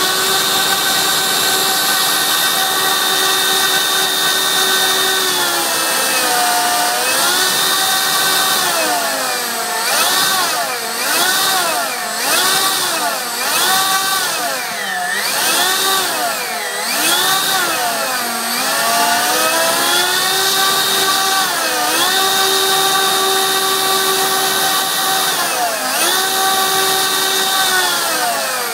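Electric model-aircraft motor with a 4:1 reduction gearbox, spinning a propeller on a test stand: a loud, steady whine. It dips once, then rises and falls in pitch over and over for several seconds as the speed is swung up and down. It steadies again, dips once more, and begins to wind down at the very end.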